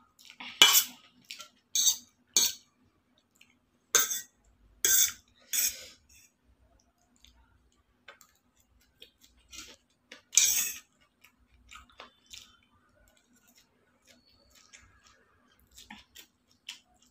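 Steel fork clinking and scraping on stainless steel plates while noodles are picked up and eaten, in a run of short sharp bursts over the first six seconds and again about ten seconds in, with smaller clicks between. A faint steady hum runs underneath.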